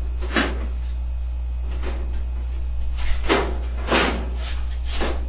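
Sheet-metal top panel of a GE dryer being fitted onto the cabinet: about six short scrapes and clunks of metal on metal, over a steady low hum.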